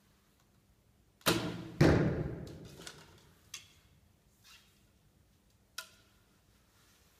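A 50-pound Hoyt Dorado recurve bow shooting: a sharp crack of the string at release, then about half a second later a louder thud of the arrow striking the target, both echoing through a large concrete hall. A few light clicks follow as the next arrow is handled.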